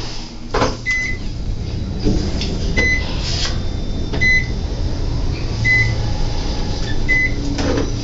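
Otis elevator car travelling up with a steady low rumble of ride noise and an occasional clunk. Over it, five short, identical electronic beeps, about one every second and a half: the car's floor-passing chime as each floor goes by.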